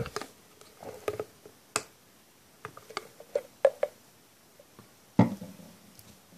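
Scattered light clicks and taps of a clear bottle of isopropyl alcohol and a phone being handled on a table, then one louder knock about five seconds in.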